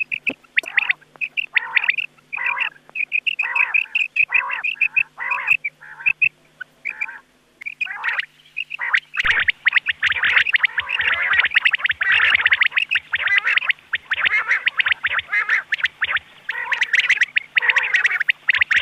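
Rain quail calls from a lure recording: sharp repeated notes in quick groups. About halfway through they turn into a dense, overlapping chorus of calls.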